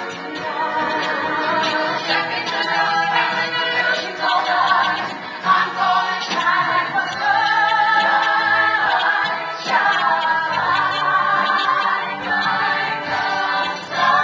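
Several women singing together in a Broadway musical number, performed live on stage and heard from the audience seats.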